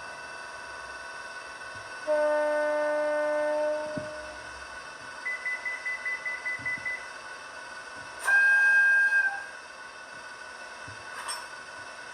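DCC sound decoder in a model EF64 electric locomotive playing its horn through a small speaker: a steady horn note about two seconds in that lasts under two seconds, then a rapid run of short beeps, then a louder, higher horn note for about a second. A few faint clicks follow near the end, over a steady electronic hiss.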